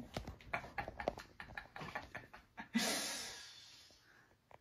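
Quick irregular small clicks and taps as a table lamp's socket and base are handled, then a long breathy sigh about three seconds in that fades away.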